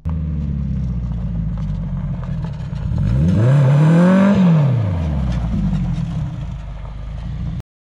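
Engine of a custom tube-chassis car revving: a steady engine note, then a climb in revs to a peak about four seconds in and a quick fall back as the car slides around on gravel. The sound cuts off suddenly near the end.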